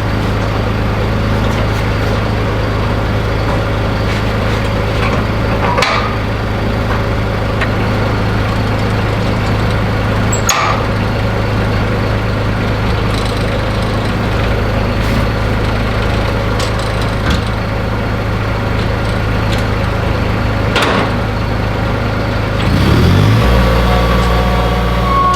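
A diesel engine idles steadily, with a few sharp metallic knocks. About two seconds before the end, the engine note shifts to a new speed.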